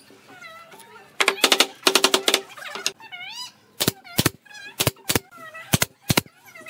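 Pneumatic nail gun firing into pine frame boards: six sharp shots in three pairs, starting about four seconds in. Before it, a burst of rapid clicking and clattering.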